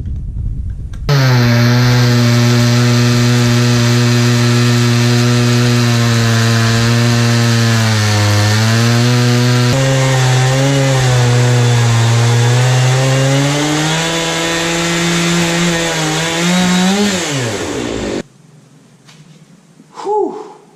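Stihl MS 460 two-stroke chainsaw on a Granberg chainsaw mill, running steadily under load while ripping an oak log with a ripping chain. The engine note sags a little around the middle, climbs and then falls near the end, and cuts off abruptly.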